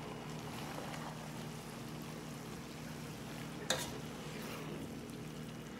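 Chow mein noodles and vegetables sizzling in a large pan as they are tossed and stirred with wooden spatulas. A single sharp knock about two-thirds of the way in.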